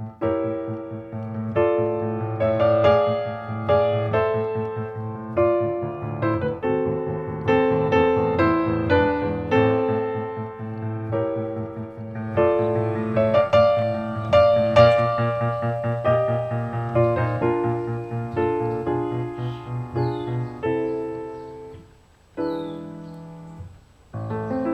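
Background piano music: a flowing melody of notes and chords over a steady low accompaniment, softening briefly near the end.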